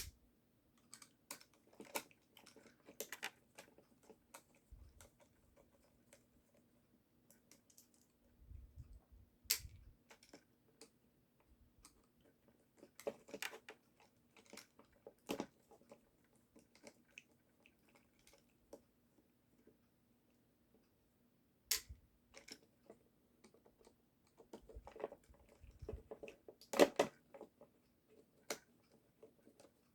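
Scattered small clicks and taps of a screwdriver and tiny screws being worked out of a plastic toy gearbox housing, with parts being handled and set down; the sharpest tap comes near the end.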